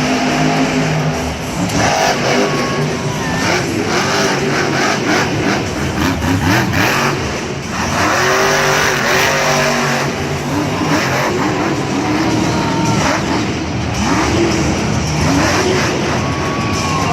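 Gas Monkey Garage monster truck's supercharged engine revving hard, its pitch climbing and dropping back again and again through a freestyle run.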